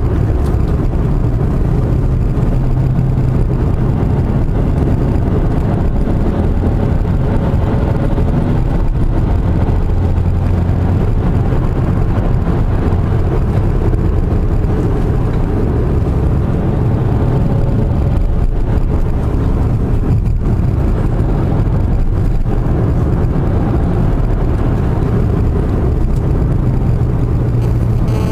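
Car engine and tyre noise heard from inside the cabin while driving on asphalt: a steady low drone whose pitch shifts a little up and down as the engine speed changes.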